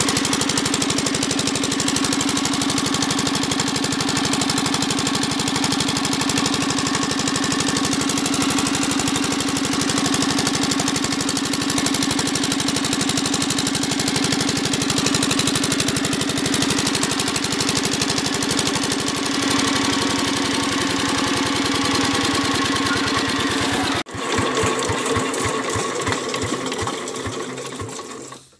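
Single-cylinder diesel pumpset engine running steadily with an even, rapid firing beat, on its test run after a new valve spring was fitted to cure its smoking. About 24 seconds in, the beats slow and spread out, and the engine runs down to a stop near the end.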